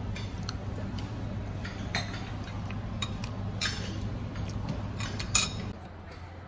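Cutlery and dishes clinking on a table, a few sharp clinks with the loudest about five seconds in, over a steady low hum that drops near the end.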